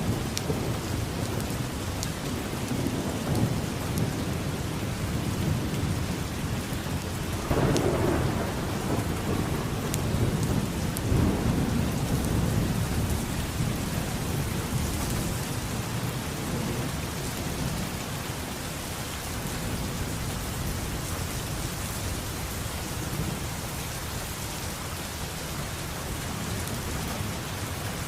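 Steady rain with thunder rumbling low underneath. About seven and a half seconds in a louder thunderclap breaks out and rolls on for several seconds, then the thunder dies away and the rain carries on.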